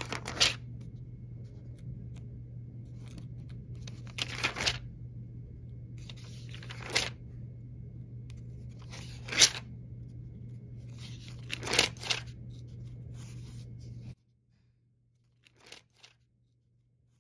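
Thin phone-book pages being turned by hand, five papery rustles spaced a couple of seconds apart. A steady low hum underneath cuts off near the end.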